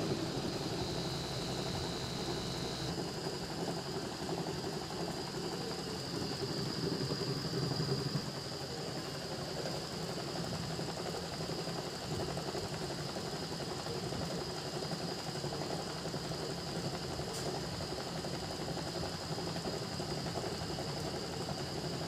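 LG top-loading washing machine's spin tub turning on its freshly replaced gearbox bearing: a steady, very smooth running hum with a thin high whine. It eases slightly about eight seconds in. The smooth sound is that of a sound, healthy bearing.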